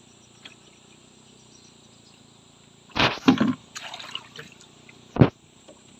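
Faint outdoor background, then water splashing loudly about three seconds in, a few smaller splashes and knocks, and one more short splash near the end.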